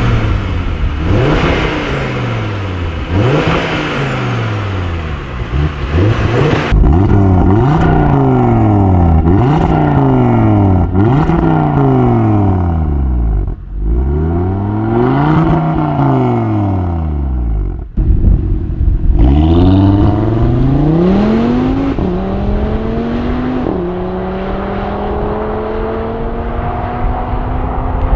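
Audi TT RS 8S's turbocharged five-cylinder through its stock exhaust with petrol particulate filter, revved again and again while standing still, each rev rising and falling within a second or two. Near the end the car accelerates away, its pitch climbing, with one upshift about three-quarters of the way in.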